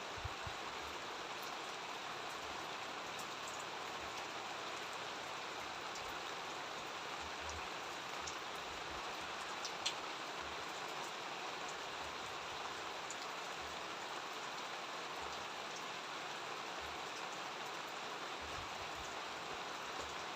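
Steady rain falling, an even hiss with scattered faint drop ticks and one sharper tick about ten seconds in.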